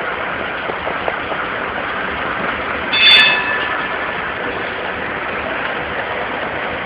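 Tram on street tracks: a steady noise runs throughout, with a short, high metallic ring or squeal about three seconds in, the loudest moment.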